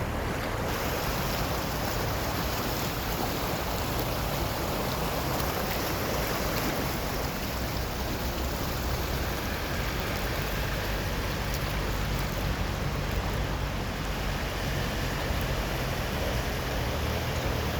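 Floodwater rushing steadily, a constant noisy wash with a low rumble underneath.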